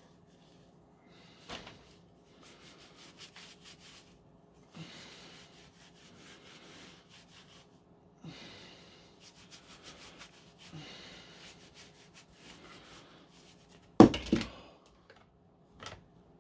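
Repeated rubbing strokes, like a cloth wiping over the plastic parts of a Dyson V10 cleaner head, in four or five spells. Near the end comes a loud knock with a short clatter, like a hard part being put down, then a smaller click.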